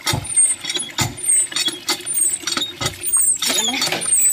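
Live mud crabs crawling over one another in a plastic bucket, their shells and legs clicking and scraping against each other and the bucket wall in quick irregular clicks, with short high squeaky chirps over them.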